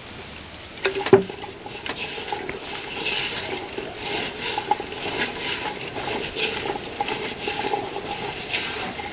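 A hand mixing chopped carrot, onion, green papaya and chili with vinegar in a black clay pot, a steady run of small rustles and clicks. There is a single sharp knock about a second in, likely the plastic vinegar bottle being set down on the wooden bench.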